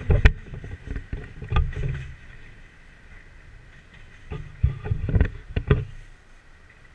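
A CrossCountry Class 220 Voyager diesel train pulling away, its rumble fading over the first two seconds. About four to six seconds in, gusts of wind buffet the microphone, with a few sharp knocks.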